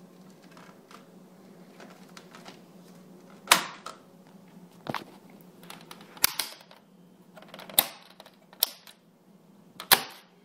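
Hard plastic clicks and snaps as the two halves of a GM instrument cluster case are pressed together and its clips latch: about six or seven sharp clicks, spread out, the loudest a little over three seconds in and near the end.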